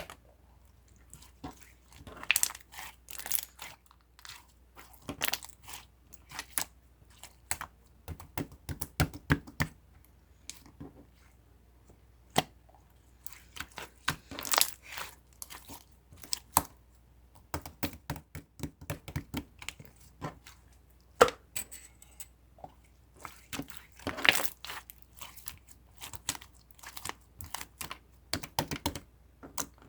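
Homemade slime being squished, stretched and pressed by hand, making irregular sticky clicks, pops and crackles, some sharper and louder than others.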